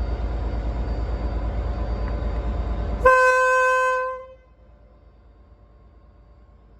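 A train running with a steady rumble, then, about three seconds in, a train horn sounds one note for about a second and fades away, leaving a faint steady hum.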